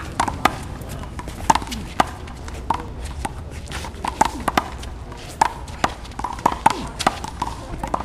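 A rubber handball being struck by hand, smacking off the concrete wall and bouncing on the court during a rally: a quick, irregular series of sharp smacks.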